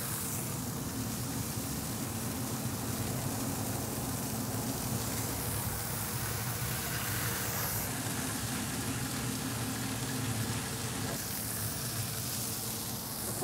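Thin smashed beef burger patties sizzling steadily on a hot cast iron griddle, with a steady low hum underneath.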